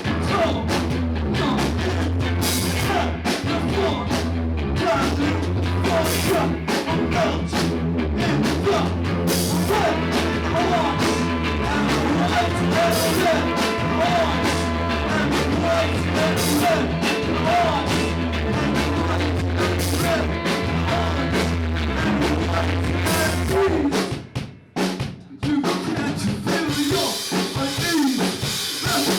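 Live rock band playing an instrumental passage, with a drum kit, snare and bass drum prominent over a steady bass line, recorded on a camcorder's built-in microphone. About 24 seconds in the band stops for a moment, then comes back in.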